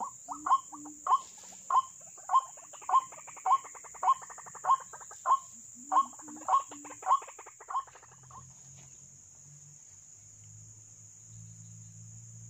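White-breasted waterhen calling: a run of loud call notes repeated about every 0.6 s, with a quicker chattering stretch in the middle, stopping about eight seconds in. A steady high insect drone runs underneath.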